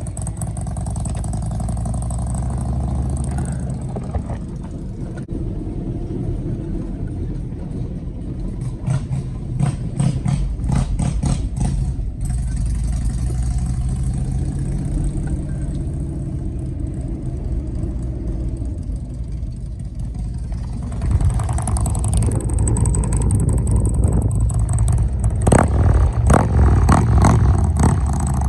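A vehicle under way: steady engine and road rumble, with runs of sharp rattling clicks about nine to twelve seconds in and again near the end, and the rumble growing a little louder past the two-thirds mark.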